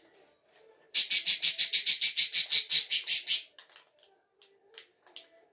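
Caged pet bird giving a rapid run of sharp, high chirps, about eight a second, for roughly two and a half seconds beginning about a second in.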